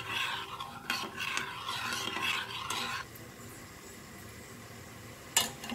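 A spoon stirring black sugar and water in a stainless-steel saucepan, scraping against the pan for about three seconds while the sugar dissolves into syrup. Then it goes quieter, with one sharp knock near the end.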